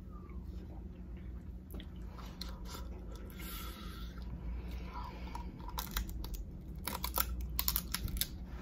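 Eating Dungeness crab close to the microphone: the shell cracking and crunching and food being chewed. It comes as scattered sharp clicks that crowd together about seven seconds in, over a low steady hum.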